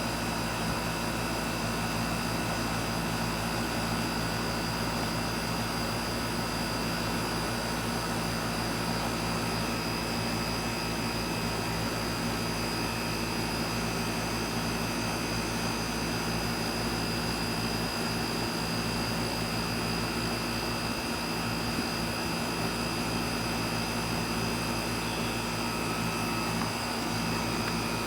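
Miller air conditioner running steadily: an even whirring with several constant hum tones, unchanging throughout.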